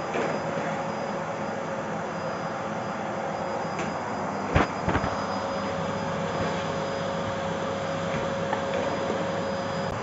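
Bosch BGS21X320 bagless canister vacuum cleaner running steadily: a constant whooshing motor noise with a steady whine in it. Two sharp knocks come about halfway through.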